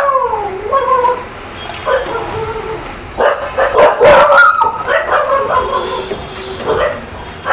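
A dog whining and yipping over and over in high cries that slide up and down in pitch, the sound of an excited, hungry dog waiting to be fed.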